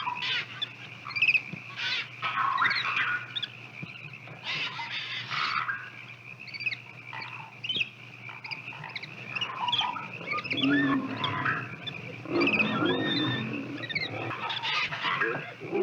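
Mixed wild animal calls: many short chirps and whistles over a steady high-pitched drone, with louder, lower calls about ten to thirteen seconds in.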